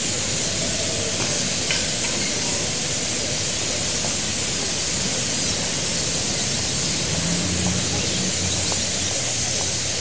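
Dense, steady chattering of a large flock of starlings at their evening roost, a continuous hiss-like wall of calls. A low drone joins underneath for a couple of seconds near the end.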